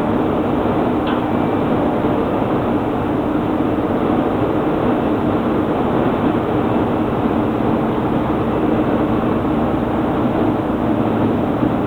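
Steady, loud drone of industrial plant machinery, an even rushing noise with a low hum underneath that does not change.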